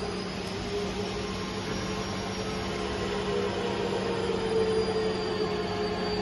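Fiber laser cutting machine running: a steady noisy hum with a high whine that drifts slowly up and down in pitch.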